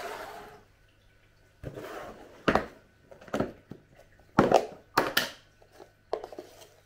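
Instant coffee tin and plastic coffee canister handled on a kitchen bench: a run of separate knocks and brief rustles, the loudest knocks about two and a half, four and a half and five seconds in.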